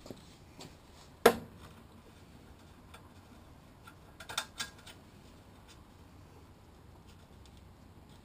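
A single sharp metallic clank a little over a second in, then a quick cluster of small clicks and clinks near the middle: metal tools and small engine parts being handled during reassembly.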